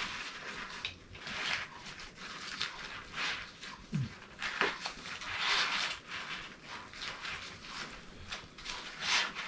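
Nylon webbing and pouch fabric rustling and scraping in repeated short strokes as reserve parachute bridle straps are stuffed into the harness's reserve pouch, with a brief low falling sound about four seconds in.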